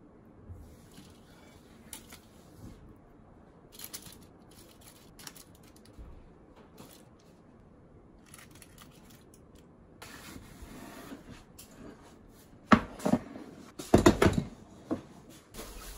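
Chopsticks placing grilled vegetables onto crumpled aluminium foil in a cast-iron skillet: faint foil crinkles and light taps. In the last few seconds, several loud clunks as a metal soup pot is handled and set down on the counter.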